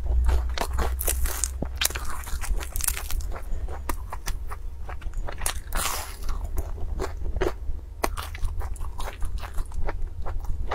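Crunching bites and chewing of crisp Chinese fried dough sticks (youtiao): a dense, irregular run of sharp crackles.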